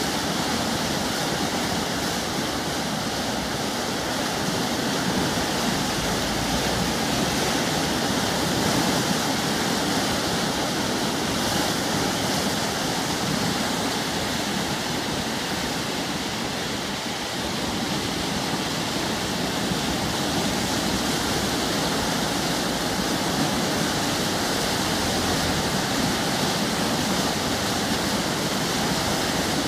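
A river in flood rushing and churning, fast turbulent floodwater making a steady, loud rushing noise with no let-up.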